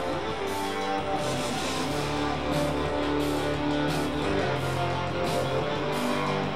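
Music led by strummed guitar, with held chords and short repeated strokes over them.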